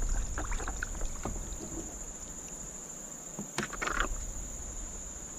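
Steady high-pitched chorus of insects droning without a break, with a brief clatter of knocks and splashy handling noise about two-thirds of the way through.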